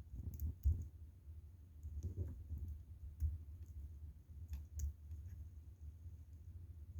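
Faint, irregular clicks of a hook pick working the pins of a pin-tumbler lock cylinder under light tension, over low handling noise, as pins are set during single-pin picking.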